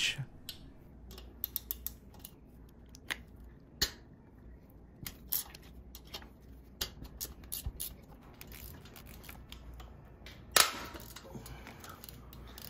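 Irregular small metallic clicks and clinks of a hand wrench on the rocker-arm assembly bolts of a Harley-Davidson Twin Cam engine as they are loosened. A louder brief rustle or scrape comes near the end.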